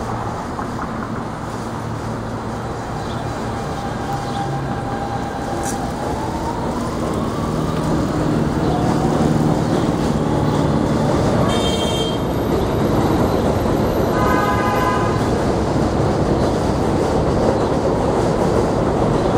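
A Q subway train running along an elevated viaduct, a steady rumble and rail noise that grows louder past the middle. A rising whine comes about a quarter of the way in, and a horn toots briefly about three-quarters of the way through.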